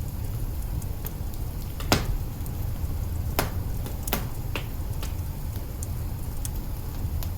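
Log fire burning in an open hearth, crackling with a few sharp pops scattered through, the loudest about two seconds in, over a steady low rumble.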